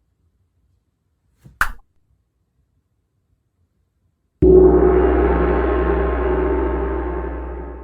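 A short click, then about four and a half seconds in a loud resonant metallic strike that rings with many tones over a deep hum and slowly fades away.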